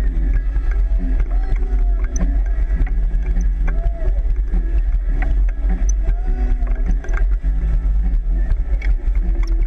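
Wind buffeting the microphone and water rushing along the hull of an O'Day 25 sailboat under sail, a steady heavy rumble, with muffled voices of the crew under it.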